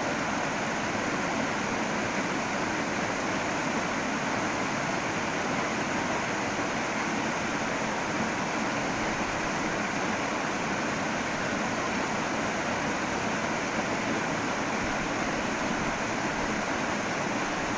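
Small waterfall, about five metres high, pouring steadily: an even, continuous rush of falling water.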